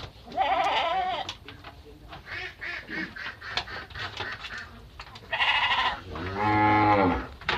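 Garut sheep bleating: a short wavering bleat about half a second in, a rougher call a little past five seconds, and one long bleat of about a second near the end, with scattered light knocks between the calls.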